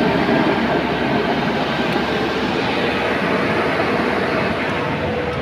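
Loaded truck's engine and cab rumble, heard from inside the cab, pulling steadily at low speed up a steep hill climb, with a faint steady hum.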